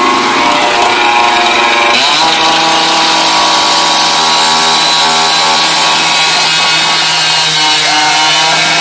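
A motor running loudly at a steady pitch, its tone changing abruptly about two seconds in.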